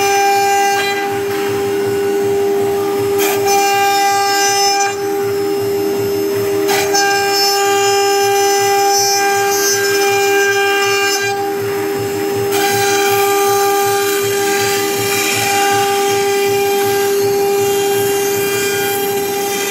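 High-speed electric spindles of a CNC wood router running with a loud, steady whine while the cutters mill round speaker holes into a wooden board, with a rough cutting noise underneath. Some of the higher tones cut in and out every few seconds as the cut changes.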